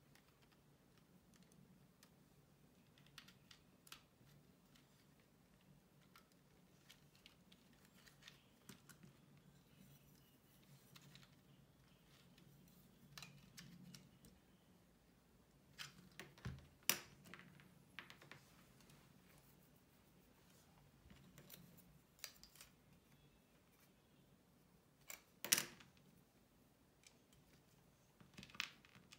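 Plastic LEGO SPIKE Prime pieces clicking and snapping as pins, beams and a module are pressed onto the hub: scattered small clicks, with two sharp snaps about 17 and 25 seconds in, over a faint low hum.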